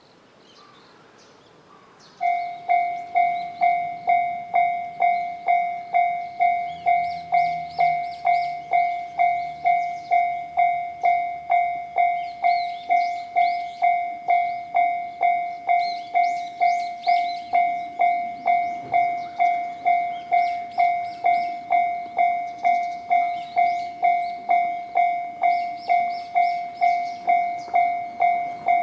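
Japanese railway level-crossing alarm, the JR standard electronic bell, starting about two seconds in and then ringing steadily: one clanging tone struck and decaying about twice a second. It signals that the crossing is active for an approaching train.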